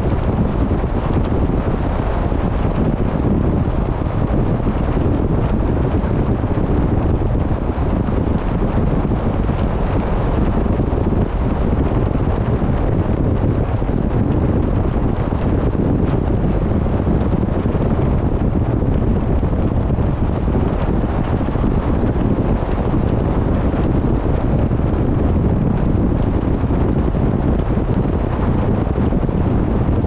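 Steady wind rumbling on the microphone aboard a boat under way, over the rush of the sea churned up alongside.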